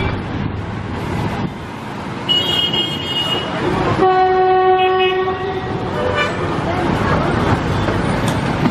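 Narrow-gauge train running, its wheels and coach rumbling steadily, heard from an open coach doorway. About four seconds in the locomotive sounds one steady horn blast lasting about a second and a half. A brief high squeal comes a couple of seconds in.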